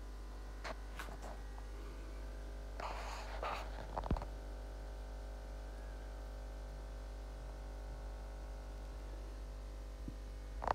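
Steady electrical mains hum, with a few faint clicks, a short rustle about three seconds in and a sharper tap just after four seconds.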